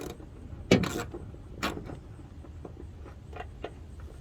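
A few sharp clicks and knocks of aluminium hood-latch hardware and tools being handled as the latch is fastened loosely to the fender, the loudest about three-quarters of a second in, over a low steady hum.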